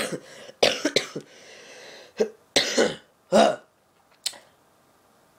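A boy coughing and clearing his throat in several short, harsh bursts, followed by a single click; then it goes quiet.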